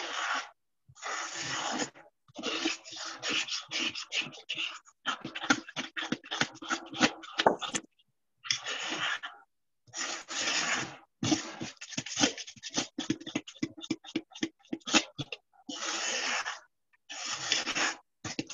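Fork beating batter in a mixing bowl: rapid clicking and scraping strokes against the bowl. Heard over video-call audio that cuts out abruptly several times.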